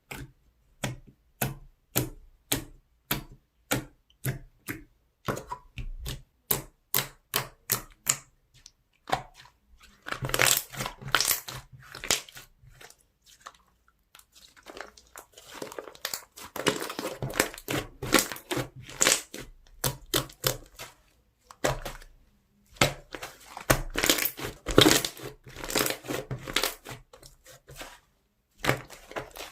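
Slime worked by hand, first pressed in a steady run of crisp clicking pops at about two or three a second, then squished and folded in longer stretches of dense crackling.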